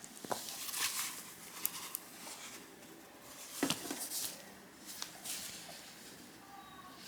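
Scattered light clicks and knocks with brief rustles, like things being handled.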